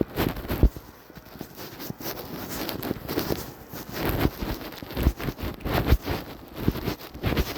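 Footsteps crunching and thudding through deep fresh snow at an irregular walking pace, with low rumble from the microphone being jostled or buffeted by wind.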